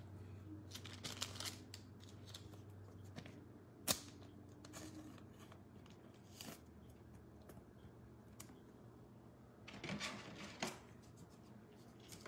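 Faint plastic rustling and scraping as a trading card is slid into a soft plastic sleeve and then a rigid plastic top loader. There is a sharp click about four seconds in and a denser rustle near the end.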